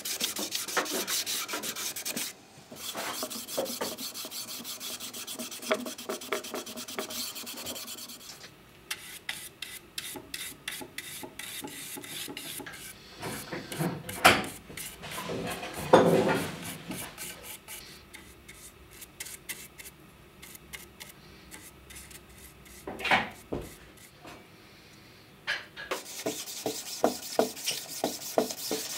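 A cloth pad rubbing shellac onto a wooden board in quick repeated strokes. The strokes are quieter through the middle, where shellac is brushed into corners from a jar and a few louder knocks sound, and they grow louder again near the end.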